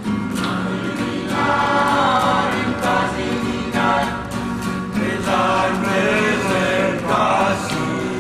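Music: a group of voices singing in phrases over a strummed acoustic guitar.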